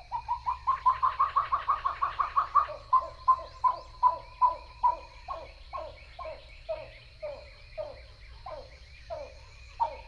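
Pied-billed grebe song: a rapid set of coos, about five notes a second for nearly three seconds, slowing into separate notes that each slide down in pitch.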